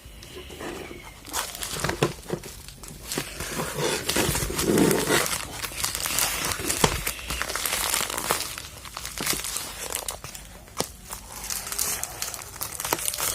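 Parcel packaging being crinkled and torn open by hand, a dense run of crackling and tearing that is loudest around the middle.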